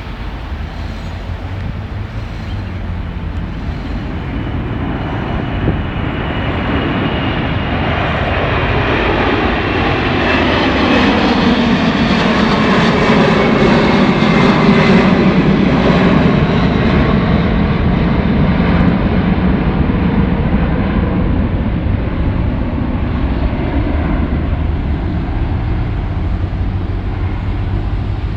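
Lufthansa Boeing 747's four jet engines at takeoff power as the airliner takes off past the listener. The sound swells to a peak about halfway through and then slowly fades, with a high whine falling in pitch as it passes.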